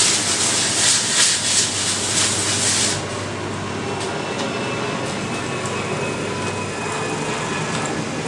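Wet 800-grit sandpaper rubbing over the epoxy-laminated foam nose of an RC airliner: a hissing rasp in repeated strokes that stops abruptly about three seconds in, leaving a steady low background noise with a hum.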